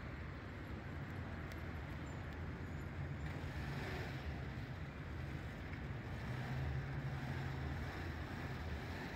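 Steady low hum with an even hiss of background noise.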